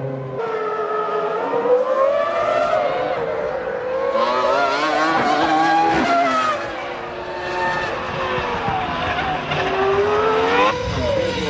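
Formula One cars' V10 engines at racing speed, pitch climbing and falling repeatedly as they rev, shift and brake.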